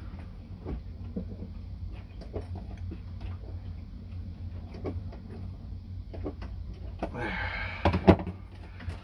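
Small ticks and taps of a screwdriver working the terminal screws of a toggle switch, over a steady low hum. Near the end there is a louder stretch of handling noise and two sharp knocks as tools are swapped on the fibreglass surface.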